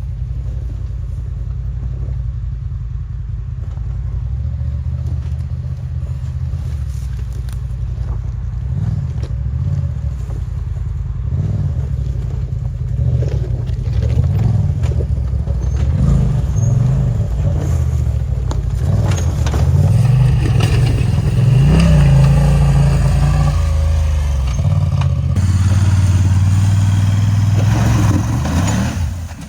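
Side-by-side UTV engine running, revving up and down repeatedly and growing louder through the second half as it climbs under load.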